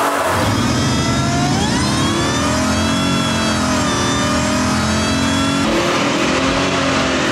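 Jaguar XJR's supercharged straight-six engine at full throttle on a rolling-road dyno during a power run, revving hard. Its note climbs over the first couple of seconds, then holds high and wavers, with a sudden change in tone near the end.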